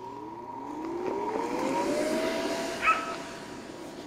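Bounce house inflator blower starting up: its motor whine climbs in pitch over about two seconds and then holds steady over the rush of air, as the fan comes up to speed. A short sharp sound cuts in about three seconds in, the loudest moment.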